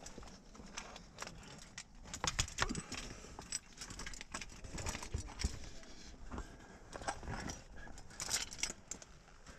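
Metal climbing gear clinking and jangling on a climber's harness, mixed with scuffs against the rock, in irregular bursts as the climber stems up between rock columns. The sharpest jangles come twice, a couple of seconds in and near the end.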